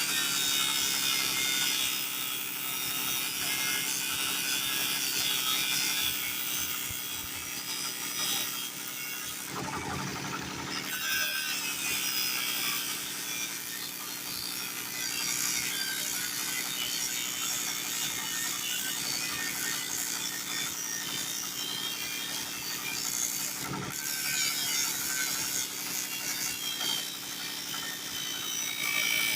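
Woodworking power tool running steadily and cutting wood, a steady motor hum under a rough, wavering high-pitched rasp, with brief dips twice.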